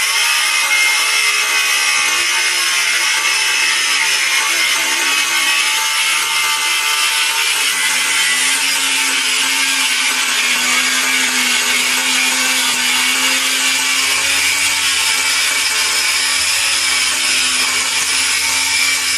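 Makita-branded cordless angle grinder with a cut-off disc cutting through 5 mm thick U-channel steel: a loud, steady grinding hiss over the motor's whine, running continuously without stalling.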